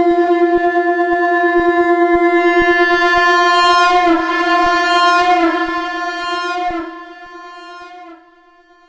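Shankh (conch shell) sounding one long, loud note on F, its pitch wavering slightly in the middle before it weakens and stops about eight seconds in.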